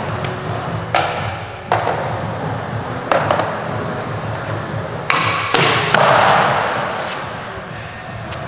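Skateboard wheels rolling on smooth concrete with a steady low rumble. Five sharp clacks of the board land about 1, 2, 3 and 5 seconds in. A longer scraping hiss follows just after the last two and fades out.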